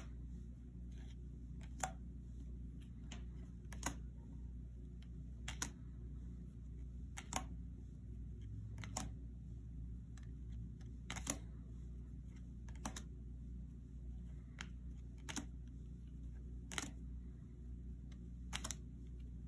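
Tarot cards being flipped over and laid down one at a time, a sharp card snap about every one and a half to two seconds, over a steady low hum.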